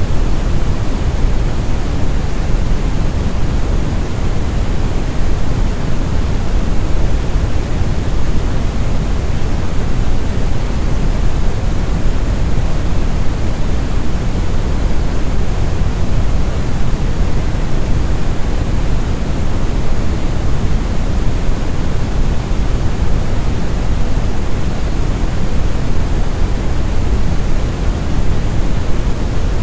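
Synthetic brown noise: a steady, deep rumbling hiss with most of its energy in the bass, unchanging throughout.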